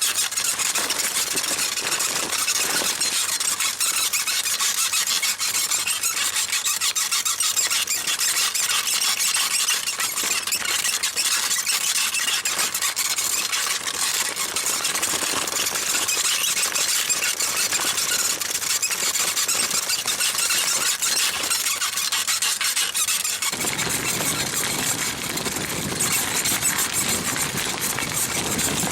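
Small rebuilt Mifa bicycle saddle squeaking loudly and continuously in quick repeated strokes as a rider rocks on it. Near the end a deeper rubbing noise joins the squeak.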